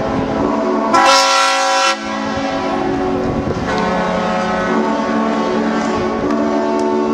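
Many yacht horns sounding at once, several steady pitches overlapping into a sustained chord. About a second in, one louder horn blasts for about a second over the rest.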